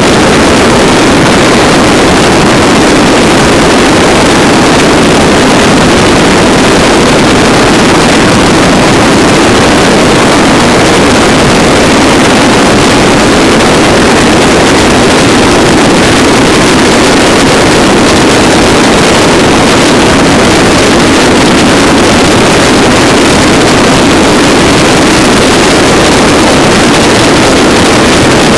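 Motorcycle cruising at highway speed: loud, steady wind rush on the microphone over the drone of the engine and road noise, unchanging throughout.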